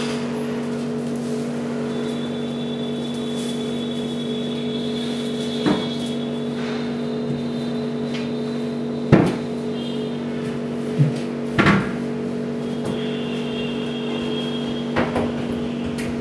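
Wooden temple panels knocking and bumping as they are fitted together, several separate knocks with the loudest about nine seconds in, over a steady low hum.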